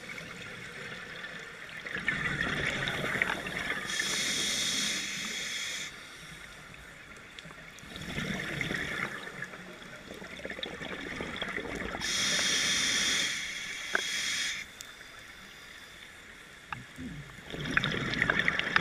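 Scuba diver breathing through a regulator underwater: a steady hiss on each of two inhalations and a gurgling rush of exhaled bubbles three times, with quiet pauses between breaths.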